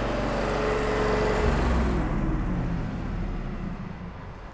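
Welding machine humming steadily with a shift in its pitch about one and a half seconds in, then winding down and fading over the last second or so as it is switched off.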